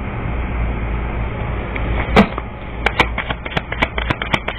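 A steady hiss, then a single sharp click about two seconds in, followed from about three seconds on by a quick, irregular run of sharp clicks, roughly three or four a second.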